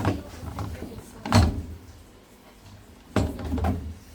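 A few irregular knocks and clunks, like hard parts or a panel being handled. The sharpest single knock comes about a second and a half in, and a rattling cluster follows near the end.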